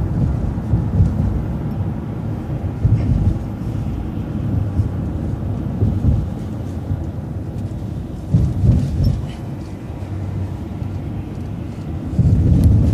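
City transit bus driving, heard from inside at the driver's seat: a steady low engine and road rumble with a few short louder bumps and swells.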